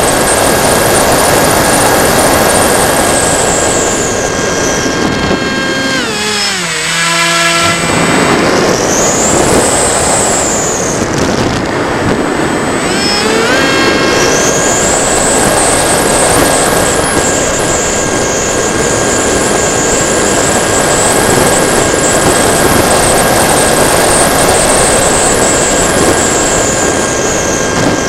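Electric motor and propeller of a TechOne Mercury RC plane, heard from its onboard camera with wind rushing past: a steady high whine. About five seconds in, the whine glides down in pitch and dies away, leaving mostly wind, as the motor is throttled back. About thirteen seconds in, it rises back up to the same steady whine as the throttle is opened again.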